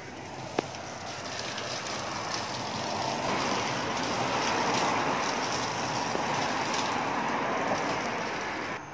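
Road traffic noise from a vehicle passing on the road below: a hiss of tyres and engine that swells to its loudest about halfway and fades away near the end. A single sharp click sounds just after the start.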